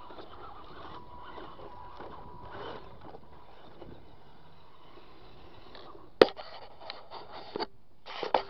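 Remo Hobby RC trail crawler running, its electric motor giving a faint steady whine over the first few seconds while its tyres scrape over wood and grass. A sharp click about six seconds in, then a string of short knocks and scrapes.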